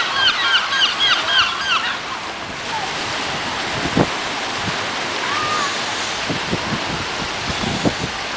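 Small waves washing onto a beach, with wind on the microphone. A gull calls in a rapid series of laughing notes for the first two seconds and gives one more call about five and a half seconds in. Boots slosh through the shallow water in a few short splashes.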